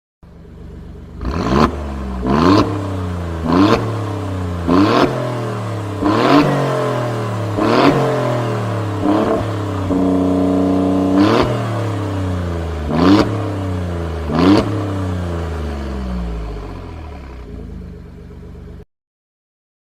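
Alfa Romeo Giulia Quadrifoglio's twin-turbo V6 revved while standing: about ten quick throttle blips, each rising sharply and dropping back to idle, with one short held rev about halfway. It then idles and fades until it cuts off about a second before the end.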